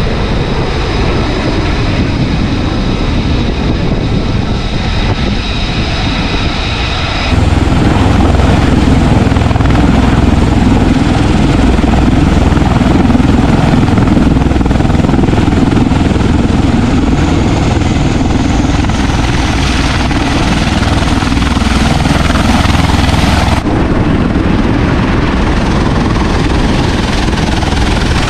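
Carrier flight-deck aircraft noise in three cuts. First, steady jet-engine noise with a high whine. About seven seconds in, a sudden jump to the louder, low rotor throb of a V-22 Osprey tiltrotor hovering over the deck. Near the end, a cut to lighter engine noise.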